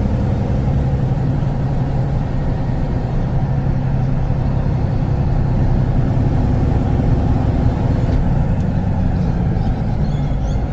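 Kenworth T360 concrete agitator truck's diesel engine running steadily under way, heard from inside the cab, with a low drone and road rumble.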